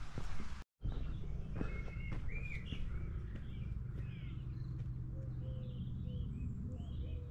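Several birds singing and chirping, with a run of short lower notes in the second half, over a steady low rumble of outdoor background noise. The sound drops out completely for a moment just under a second in.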